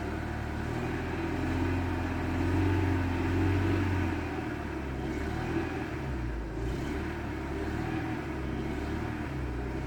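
Renault Mégane II four-cylinder engine running with its second cylinder disconnected. The revs are raised about a second in, held, then fall back to a steady speed around the middle. The knock being traced is barely audible with this cylinder cut, which the owner takes to mean it comes mainly from the third cylinder.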